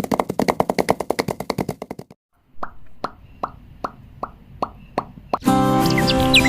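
A quick run of sharp plopping clicks stops about two seconds in. After a short pause, slower plops come about two or three a second, like drips. About five and a half seconds in, music with chirping bird sounds starts.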